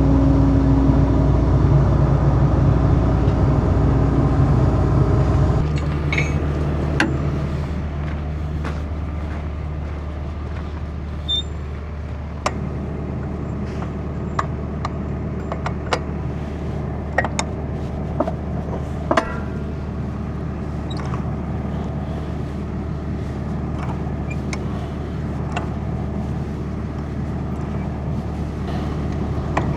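A vehicle engine running steadily; its note drops and thins about six seconds in, then it runs on at a lower level. Scattered clicks and knocks sound over it.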